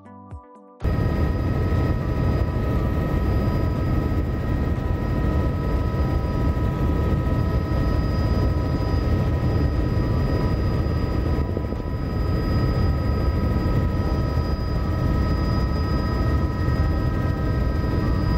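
A tour helicopter's engine and rotors heard from inside the cabin: a loud, steady drone with several steady high whining tones over it, starting abruptly under a second in as the music cuts off.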